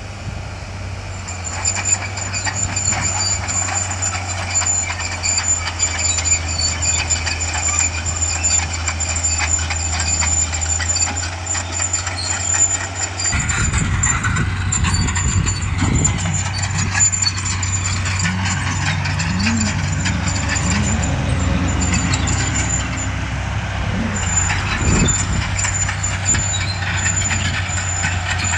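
Heavy diesel earthmoving machinery at work: a steady low engine drone with clanking throughout. About halfway through, an engine grows louder and its pitch wavers up and down as it works under changing load.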